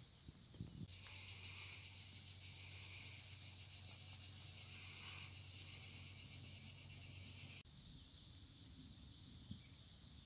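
Insects chirring in the summer vegetation: a steady high-pitched buzz with a fast, even pulse. It grows louder about a second in and drops back abruptly to a fainter chirring about two-thirds of the way through.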